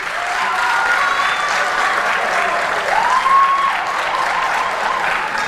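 Studio audience applauding steadily, with a few voices calling out over the clapping; one call rises and holds about three seconds in.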